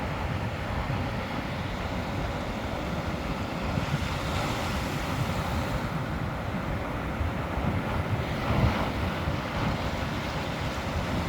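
Sea waves washing, with wind buffeting the microphone as a steady low rumble; the wash swells brighter about four seconds in and again near nine seconds.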